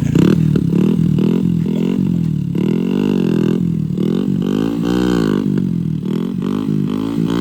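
Motorcycle engine, just kick-started, running and being revved up and down several times.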